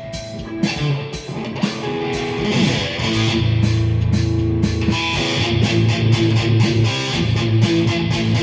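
Squier Sonic electric guitar, fitted with new pickups, played through an amp with overdrive: a few single notes, then from about three seconds in, loud distorted chords strummed in a steady rhythm.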